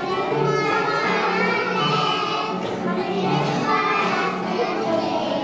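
Choir of young children singing a Christmas song together, accompanied by an electronic keyboard.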